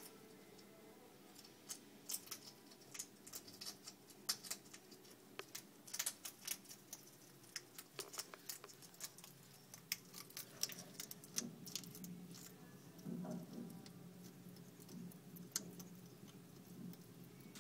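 Pet hedgehog crunching dry kibble and scrabbling over wood-shaving bedding: irregular, faint clicks and crackles, several a second at times.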